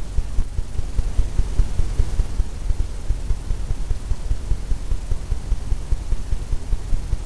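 A steady low rumble with a fast, uneven flutter and little above it.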